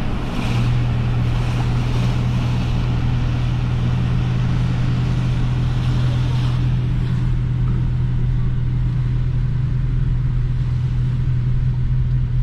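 Car cruising on the road, heard from inside the cabin: a steady low engine drone over constant tyre and road noise.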